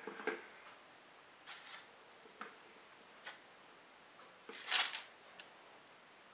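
A teaspoon dabbing water onto raw dough rolls on a parchment-lined baking tray: a few soft taps and scrapes, and a brief, louder rustle about four and a half seconds in.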